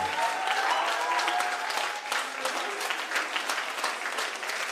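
Audience applauding: dense clapping from many hands, with a few voices calling out in the first second or so.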